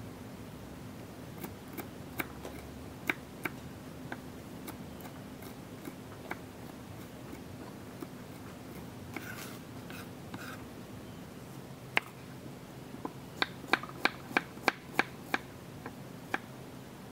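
Kitchen knife chopping garlic cloves on a wooden cutting board: scattered sharp taps of the blade on the board, then a quick run of about eight louder chops, around three a second, near the end.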